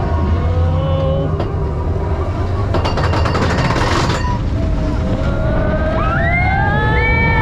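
Expedition Everest roller coaster train rumbling along its track, with a rapid rattling clatter for about a second midway. Near the end, riders' voices rise together in a long scream.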